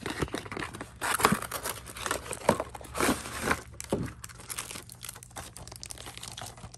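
Cardboard packaging and plastic wrap rustling and crinkling as a toy box is opened and its cardboard inner tray and plastic-bagged contents are slid out and handled. Irregular scrapes and crackles, busiest in the first four seconds and quieter after.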